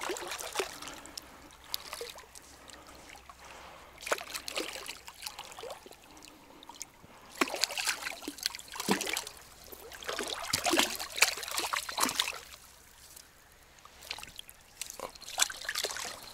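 A small hooked carp thrashing and splashing at the surface of shallow water as it is drawn in to the bank, in several bursts a few seconds apart.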